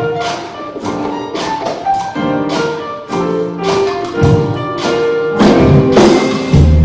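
Instrumental music with a steady beat of sharp percussion hits over sustained pitched notes. A heavy bass line comes in near the end.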